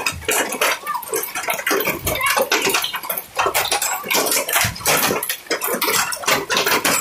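Hailstorm: a dense, irregular clatter of hailstones striking a car's body and the ground, many small hard ticks a second with no let-up.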